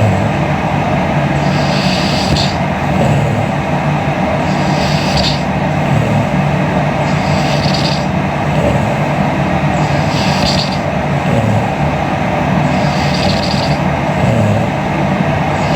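A sleeping woman breathing, with five hissing breaths coming about every three seconds over a loud, steady rushing noise.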